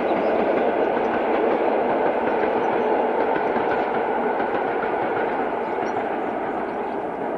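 Train rolling past on the track, its wheels running over the rails in a steady rumbling clatter that slowly fades.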